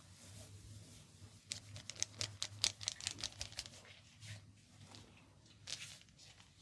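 Hands massaging an oiled head: a quick run of a dozen or more slapping, rubbing strokes over about two seconds, then two single strokes.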